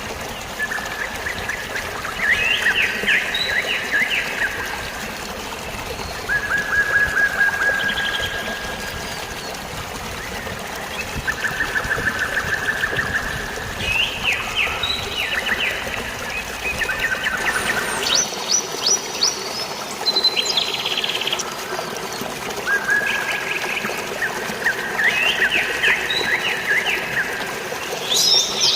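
Songbirds calling in short repeated trills and chirps over steady flowing water. About 18 s in, the water's low rumble drops away and a thinner splashing takes over.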